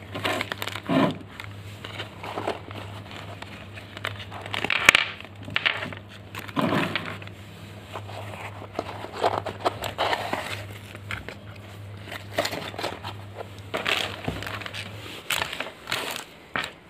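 Clear plastic packaging bags crinkling and rustling in irregular bursts as a clamp meter's bagged test leads and accessories are handled and set down. A low steady hum runs underneath and stops near the end.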